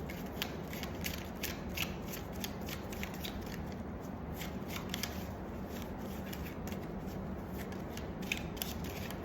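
Tarot cards being shuffled and handled: a run of short, irregular clicks and flicks over a steady low hum.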